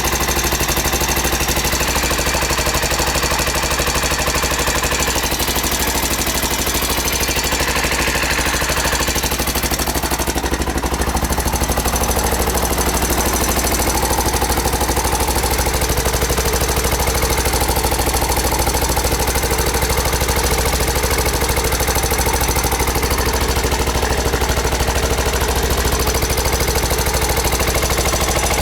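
Honda XR600R's air-cooled single-cylinder four-stroke engine running with a rapid, clattering rattle, the timing (cam) chain noise the owner is showing.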